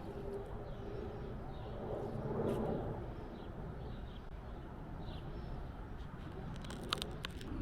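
Outdoor background of a low, steady rumble with faint, scattered bird chirps.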